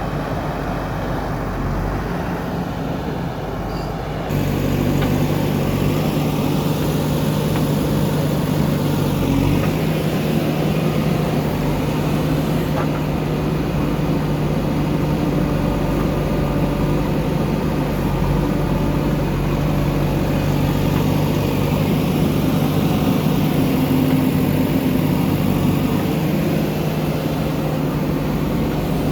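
Diesel engine of a JCB backhoe loader running steadily under working load. It steps up sharply in level about four seconds in, then holds a steady even drone.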